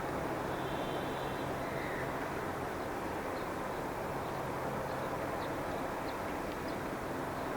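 Steady roar from a nearby hotel's machinery with a low hum, blended with the noise of road traffic behind it. A few faint high chirps now and then.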